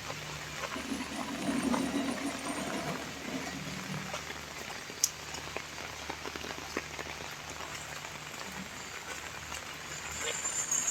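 Steady rain falling, with many small drips and patters on surfaces and one sharper tap about five seconds in.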